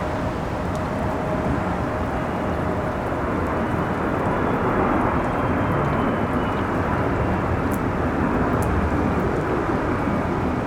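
Heavy rain and gusting wind over a steady low roar of jet airliner engines on a take-off run, the roar swelling a little midway with a faint high engine whine sliding slightly down in pitch.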